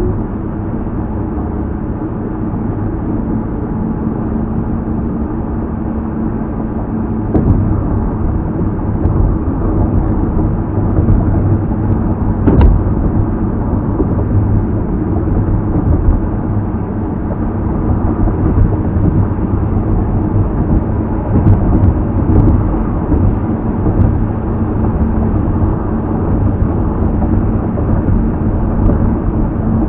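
Steady road and engine noise heard inside a car cruising on a freeway: a continuous low rumble, with a single sharp click about twelve seconds in.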